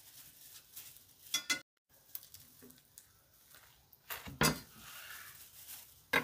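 Chef's knife cutting through a toasted open sandwich, crunching through the toast and knocking onto the wooden cutting board about four seconds in. A couple of sharp metallic clinks come a second and a half in, and another knock near the end.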